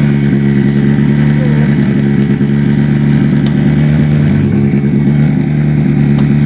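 Hyundai i20 R5 rally car's 1.6-litre turbocharged four-cylinder engine idling steadily, with two short clicks, one about three and a half seconds in and one near the end.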